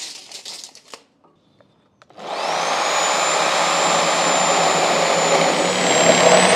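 Compact reciprocating saw starting about two seconds in and cutting through an old, very hard timber beam: a loud steady buzz with a high motor whine that rises a little near the end.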